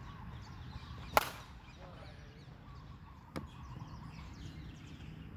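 A metal bat hits a ball once about a second in: a sharp ping with a short ring. A much fainter knock follows about two seconds later, over birds chirping in the background.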